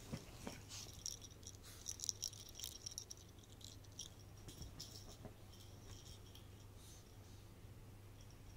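A small toy ball with a rattle inside jingling in quick bursts as a Chihuahua tugs at it, for about the first five seconds, then only faintly.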